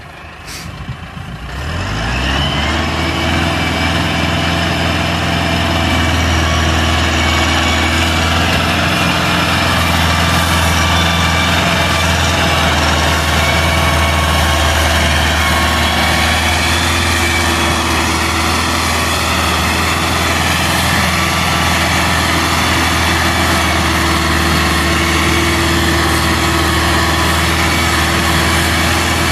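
Massey Ferguson 375 tractor's diesel engine revving up about two seconds in, then running hard and steady under heavy load as it pulls an overloaded sugarcane trolley.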